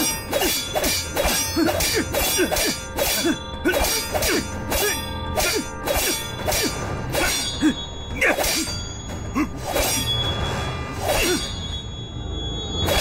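Staged sword-fight sound effects: rapid metal clashes of blades and whacks of blows, several a second, thinning out in the second half, over dramatic background music.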